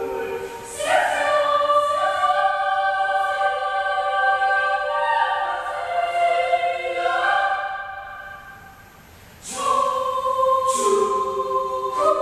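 Children's choir singing long held notes in harmony. Near three-quarters of the way through the voices fade away, then come back in together.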